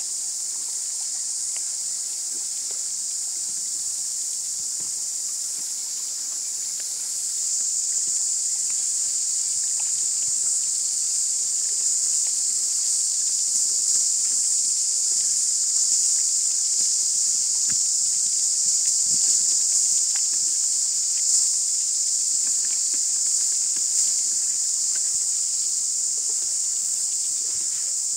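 Steady, high-pitched chorus of cicadas, growing louder about seven seconds in, with faint scattered ticks of water against the boat's hull.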